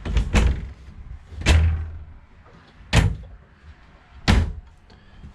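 Wardrobe cabinet doors being opened and shut, about five sharp thumps a second or so apart.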